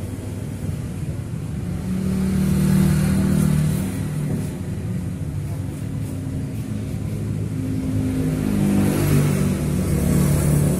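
A man's voice reciting the Quran in long, held notes that step slowly from pitch to pitch, over a steady hiss and low rumble.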